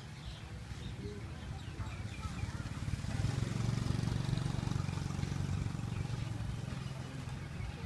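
A vehicle engine running close by, growing louder about three seconds in and fading again near the end, with faint voices behind it.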